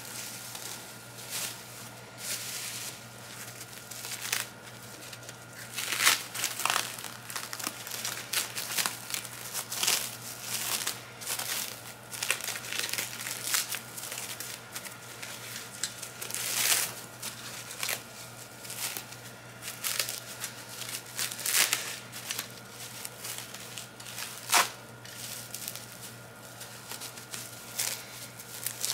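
Bubble wrap crinkling and crackling as it is handled and pulled off an elevator hall button station, in irregular handfuls with a few sharper crackles about six, seventeen and twenty-five seconds in.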